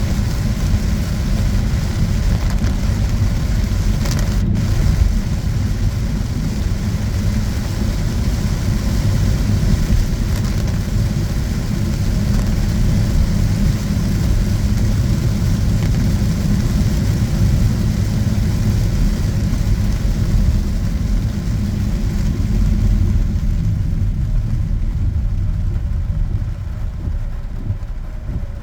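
Steady low rumble of a road vehicle on the move in the rain, with a hiss of rain and wet road over it. The hiss fades about 23 seconds in.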